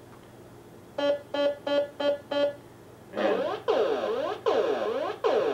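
Electronic tone generator simulating a pulsar. About a second in come five short steady beeps, about three a second. About three seconds in it switches to a run of repeating falling chirps, each pulse sliding from high to low pitch so that the lower tones trail behind, the way dispersion smears a distant pulsar's signal.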